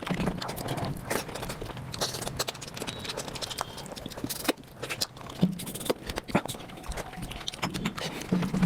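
Eating sounds of mutton nalli (marrow bones) played back sped up: chewing, with a rapid, irregular run of wet clicks and smacks.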